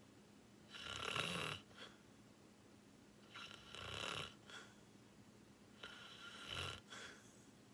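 A sleeping person snoring: three snores about two and a half seconds apart, each followed by a brief short breath, the first the loudest. A faint steady hum runs underneath.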